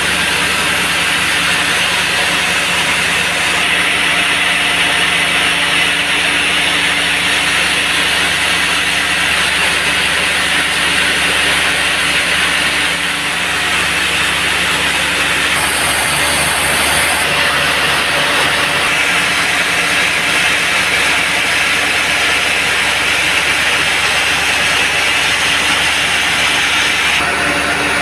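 Band sawmill running and cutting through a log: a steady motor drone under the hiss of the blade in the wood.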